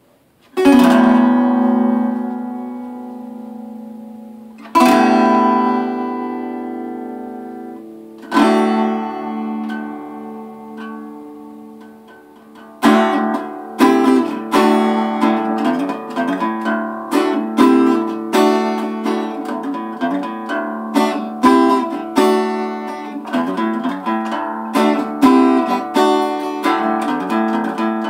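Small travel acoustic guitar in drop D tuning, played with an oversized pick: three chords struck about four seconds apart and left to ring out and fade, then steady rhythmic picking from about halfway through.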